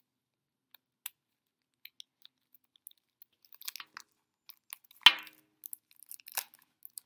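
Stiff plastic blister packaging being pried and chipped at with scissors: scattered small clicks and crackles, with one sharp, loud plastic snap about five seconds in.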